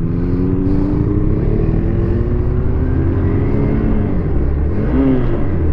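Motorcycle engine pulling away on the road, its pitch rising over the first couple of seconds, holding, then easing down a little after the middle, over a steady low rumble of wind and road noise.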